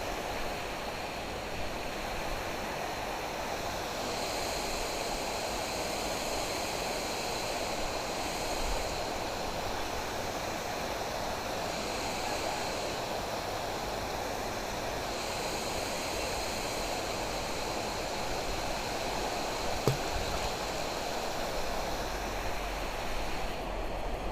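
Water rushing steadily in a flowing canal, with a faint higher hiss coming and going a few times and one short click about twenty seconds in.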